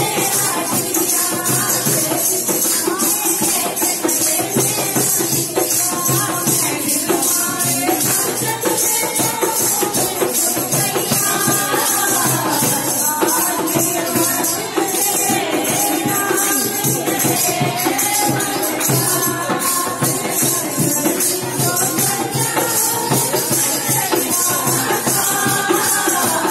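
A woman singing a Hindi devotional bhajan to Ram through a microphone, with jingling hand percussion keeping a steady beat.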